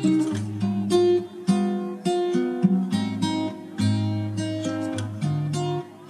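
Background music on acoustic guitar: a steady run of plucked notes, a new one about every half second.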